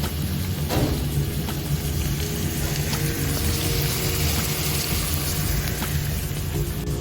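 Food frying and sizzling in a pot, a steady hiss with a few faint ticks, under background music.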